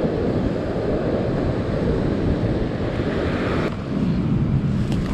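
Wind rumbling on the microphone over the wash of surf on the beach.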